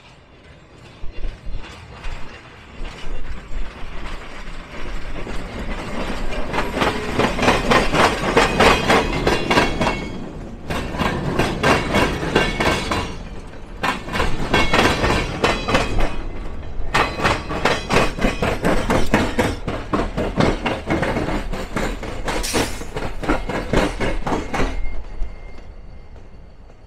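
Train wheels clattering across a railroad diamond crossing: a rapid run of sharp clacks that builds up from about six seconds in, comes in groups with short breaks, and fades near the end.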